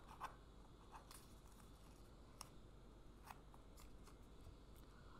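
Near silence with a few faint clicks and rustles of a paper disc being lifted off a cardboard-backed jigsaw puzzle and handled.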